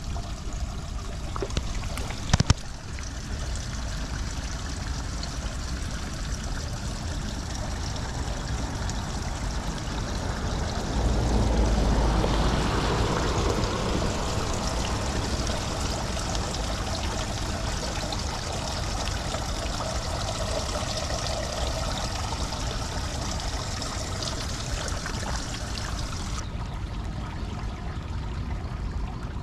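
Steady hiss of water in a flooded street gutter: light rain falling on standing water and water trickling at a storm drain grate clogged with leaves. A few sharp clicks about two seconds in, and the sound swells louder for a few seconds around the middle.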